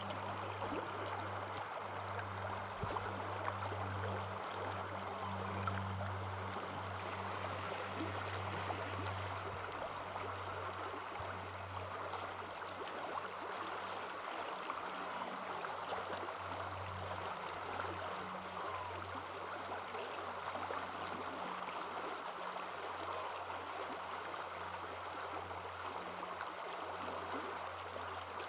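Steady rushing of a stream, with a low hum underneath.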